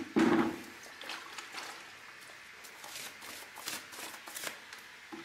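Paintbrush working a watery PVA mix onto rough brickwork: a series of short, scratchy swishes and dabs, after a brief louder sound at the very start.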